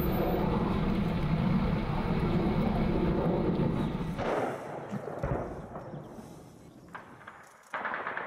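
Fighter jet overhead, a loud steady jet noise that fades away about four seconds in. Near the end comes a sudden loud bang.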